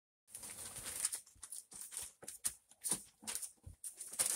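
Newspaper bedding rustling and crinkling in irregular bursts as a mother dog and her young puppies shift about on it in a wicker basket.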